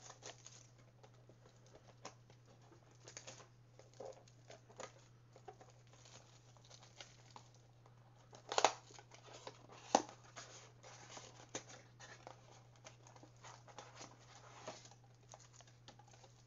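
Trading-card packs from a Panini Mosaic blaster box being torn open, with irregular crinkling of the plastic wrappers and two sharp, louder rips about eight and a half and ten seconds in.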